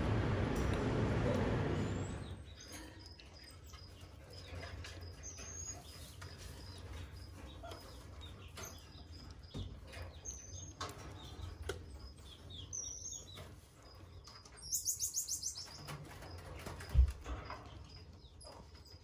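High, short animal chirps now and then, with a quick rapid trill about 15 seconds in. A single sharp thump comes near 17 seconds. The first two seconds carry a louder steady noise that stops suddenly.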